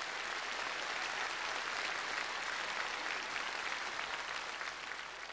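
Studio audience applauding a punchline. The applause holds steady and fades away near the end.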